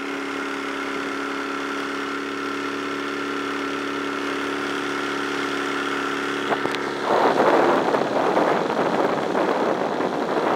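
1956 Johnson two-stroke outboard running steadily at wide open throttle, pushing the boat without getting it on plane, a lack of top-end performance that the owner blames on a worn propeller. About seven seconds in, a loud rushing noise sweeps over the microphone and covers the engine until near the end.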